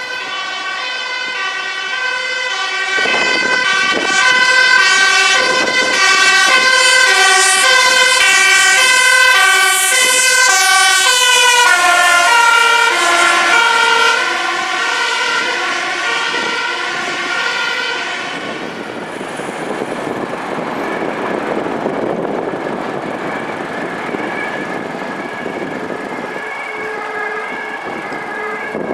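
Two-tone sirens of Dutch emergency vehicles, a fire engine among them, alternating high and low in regular steps, with several sirens at different pitches overlapping. They are loudest in the first half, then grow fainter from about two-thirds of the way in, over the hiss of passing road traffic.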